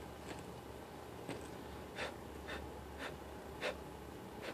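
Short scrapes and taps from handling a wooden-framed sand casting mold: fingers and sand scratching against the mold edge and frame, about six separate sounds, the loudest near the end, over a steady low hum.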